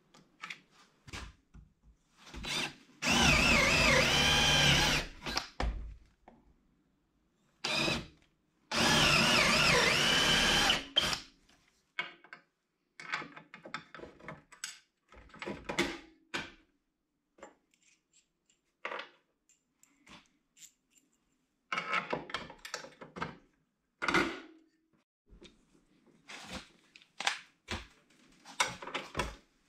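Hercules 11-amp variable-speed portable band saw running in two bursts of about two seconds each, its whine wavering in pitch. Between and after the bursts come scattered knocks and clicks from handling.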